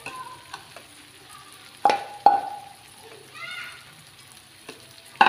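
Metal spatula stirring chili paste and petai beans in a metal wok, with a light frying sizzle. About two seconds in the spatula strikes the wok twice, sharp clangs that ring briefly.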